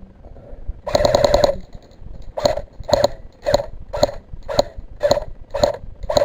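Airsoft rifle firing: a short full-auto burst about a second in, then a steady string of single shots about two a second.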